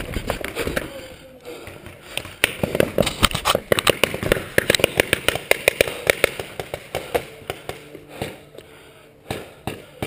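Paintball fire: a rapid string of sharp cracks, about eight a second, starting a couple of seconds in and lasting about three seconds, followed by a few single shots near the end.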